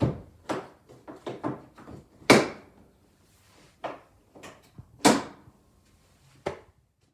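A series of sharp knocks and clunks, about a dozen. The loudest come near the start, a little over two seconds in and about five seconds in, with fainter clicks between.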